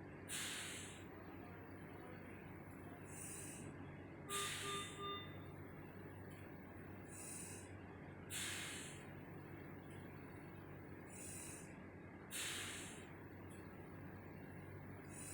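Mechanical ventilator cycling about every four seconds, each breath a rush of air followed later by a softer hiss, over a steady low machine hum. Three quick beeps sound about four and a half seconds in.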